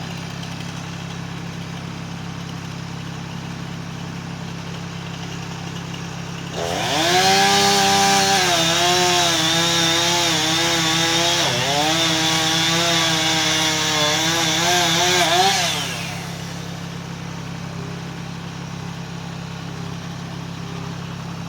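Gas chainsaw idling, then opened to full throttle about six seconds in and run hard for about nine seconds, its pitch dipping and wavering as it cuts into wood, before dropping back to idle.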